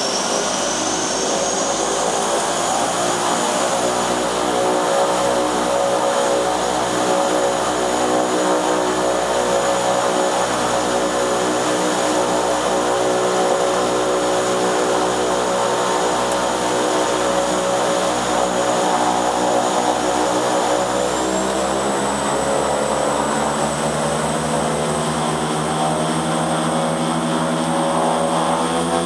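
De Havilland Canada DHC-6 Twin Otter's twin PT6A turboprop engines and propellers running, heard from inside the cockpit: a steady drone with a high turbine whine over it. About two-thirds of the way through, the whine steps up and the propeller drone climbs in pitch.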